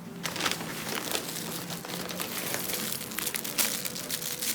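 Plastic packaging crinkling and rustling as an item is pulled out of it, with many quick crackles throughout.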